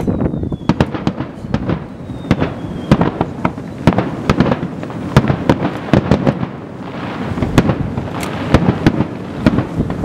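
Aerial firework shells bursting in quick succession over a harbour, sharp bangs several times a second over a rolling low rumble. A faint falling whistle sounds twice in the first three seconds.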